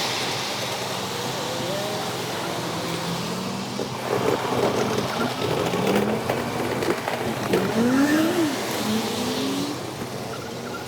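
Steady outdoor traffic and wind noise. From about four seconds in, a few seconds of people's voices rise above it, then fade.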